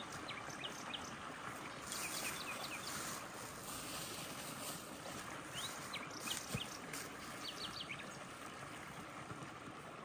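Steady rushing outdoor background, like running water, with a few brief runs of short high chirps.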